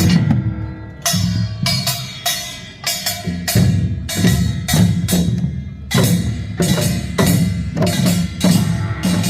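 Live percussion performance: drums beaten in a driving rhythm with sharp, wood-block-like strikes. There is a short break just after the start, then the beat runs on at a few strikes a second.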